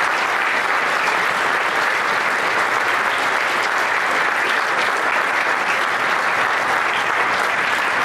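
Congregation applauding: dense, steady clapping.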